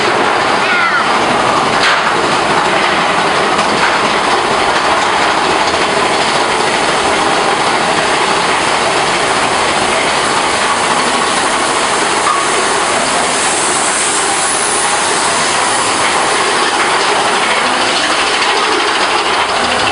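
Big Thunder Mountain Railroad mine train being hauled up a chain lift hill: steady mechanical clatter of the lift chain, with the anti-rollback pawls clicking along the ratchet track.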